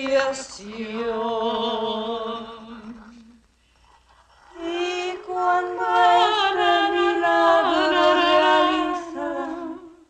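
A voice singing unaccompanied in long held notes with some vibrato. It stops about three seconds in and starts again about a second later.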